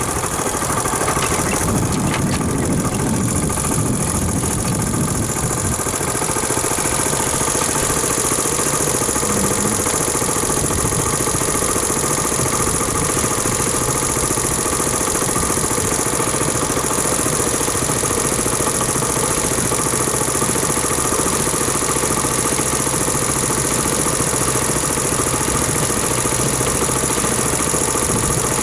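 An engine running at a steady speed, with a slight change in its low end about six seconds in.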